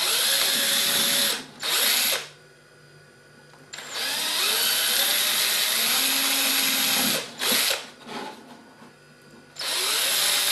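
Cordless drill with a small pilot bit boring through thin, brittle plastic, run in several short bursts with brief pauses between; the motor's pitch rises as it spins up at the start of each run.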